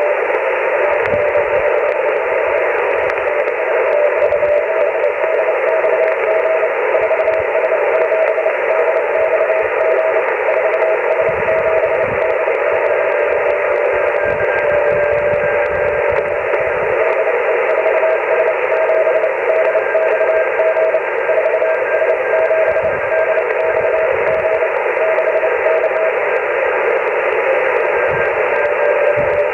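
Icom HF transceiver receiving Morse code (CW) on the 30-metre amateur band: a keyed tone sounding dots and dashes over steady band-noise hiss. A second, fainter and higher-pitched Morse signal joins partway through, and the main signal breaks off briefly near the end.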